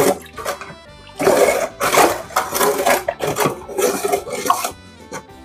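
Liquid sloshing and swishing in a large aluminium stockpot as a spoon stirs the sweetened sorrel drink, in several loud bursts from about a second in. Steady background music plays under it.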